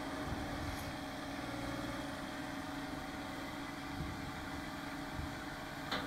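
John Deere 1025R compact tractor's three-cylinder diesel engine running steadily at an even pitch, with a brief click near the end.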